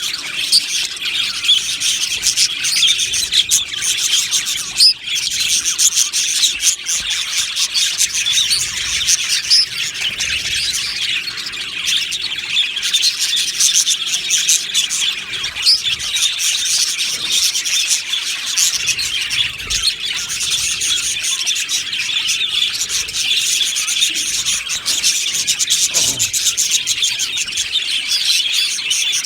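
A flock of budgerigars chirping and warbling continuously, many birds calling at once.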